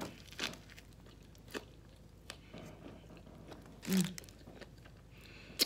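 Close-up chewing of a Subway sub sandwich: soft, wet mouth sounds with several sharp clicks and crunches of the bread, and a brief hummed "mm" about two-thirds of the way through.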